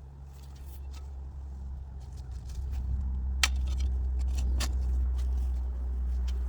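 An engine running steadily with a low hum, growing louder over the first three seconds and then holding. A couple of sharp clicks or knocks sound in the middle.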